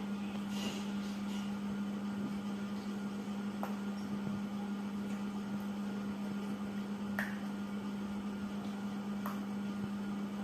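Steady low hum with a faint background hiss, broken by a few faint, short clicks.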